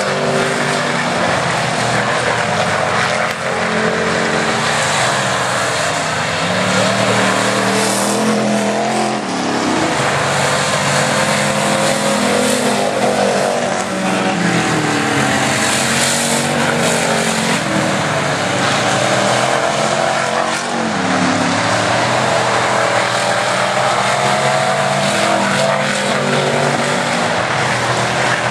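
Several stock and modified race car engines running hard together, their pitch rising and falling as they accelerate and ease off, with a few engines overlapping.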